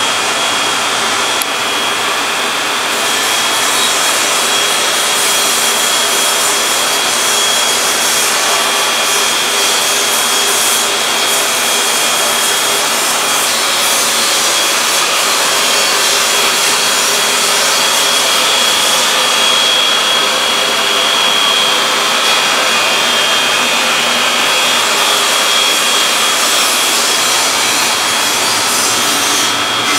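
Powder-coating booth's extraction fan and electrostatic powder spray gun running together: a loud, steady rush of air with a thin steady whine over it.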